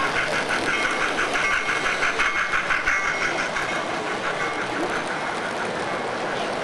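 Model steam locomotive running past close by, with a fast rhythmic beat of about four to five pulses a second that fades out about five seconds in as its passenger cars roll by.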